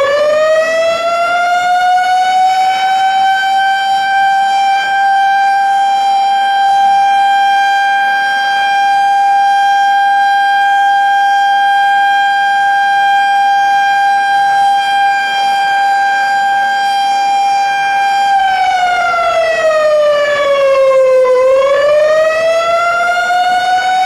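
Civil defense siren sounding a warning, finishing its wind-up in the first few seconds and then holding one steady high wail. About three-quarters of the way through it slides down in pitch and then climbs back up.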